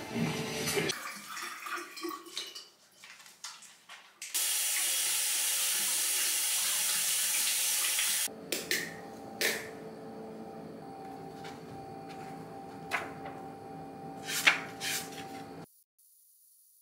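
Bathroom sink faucet running into the basin for about four seconds while hands are washed under it, then shut off, followed by a few light clicks and knocks.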